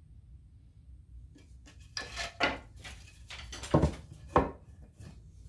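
Wooden 2x4 boards being handled and shifted, giving a few scrapes and clunks about two seconds in and two sharper knocks a little later.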